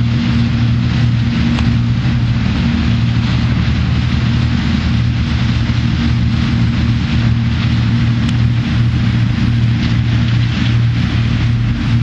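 John Deere combine harvester running steadily as it harvests soybeans: a constant low engine drone with an even hiss over it.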